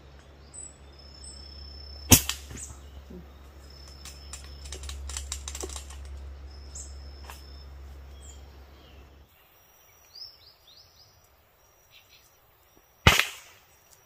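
Two sharp shots from a bird-hunting weapon, one about two seconds in and one near the end, with small birds chirping and whistling faintly between them.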